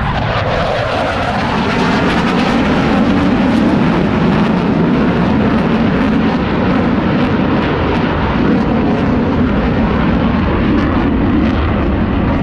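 Two Blue Angels F/A-18 jets passing overhead in formation: loud, steady jet engine noise, with a whine that falls in pitch in the first second.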